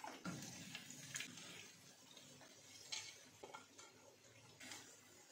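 Faint, scattered clicks and taps of a plastic slotted spatula against a ceramic plate as fried potato cheese balls are set down on it, about six in all, over a faint steady hiss.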